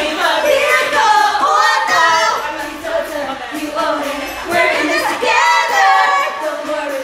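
Group of female voices singing a pop song together over backing music, with lines in Hmong and English.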